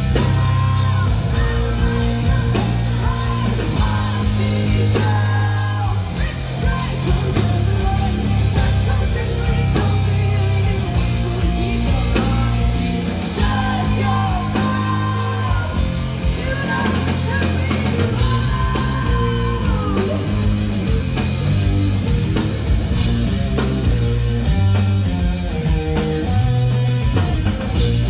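Live rock band performance: distorted electric guitar, bass and drums under a sung vocal, recorded at a concert.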